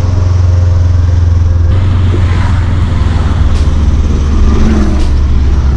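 Subaru STi's turbocharged flat-four running under way with a loud, steady low drone, heard from inside the cabin. The engine is blown, which the owner's tags put down to a spun bearing and ringland damage, and it is making a racket.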